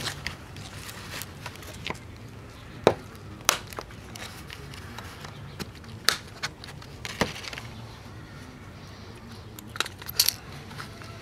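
Sharp plastic clicks and snaps, a second or more apart, as the press-fit plastic base of a compact fluorescent bulb is pried apart by gloved hands.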